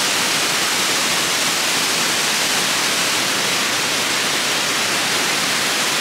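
Fukuroda Falls, a wide tiered waterfall, pouring in many streams over a dark rock face: a loud, steady rush of falling water.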